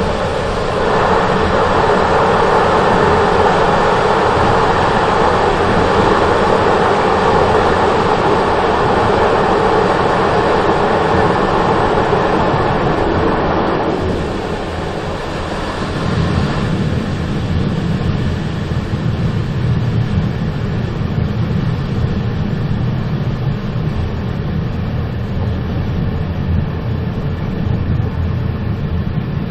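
Moving train running with a continuous noisy rumble. About halfway through, the brighter middle-range noise fades over a second or two and a deeper rumble takes over.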